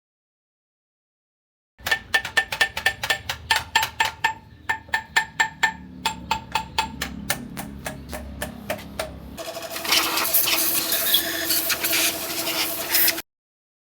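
Rapid metal-on-metal tapping, about four to five ringing strikes a second, as from hammering on steel engine parts. About two-thirds of the way through it gives way to a denser, steady mechanical noise with a hum in it, which cuts off suddenly near the end.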